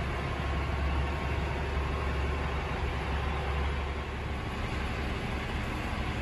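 Steady low rumble of heavy trucks running, with an even hiss above it.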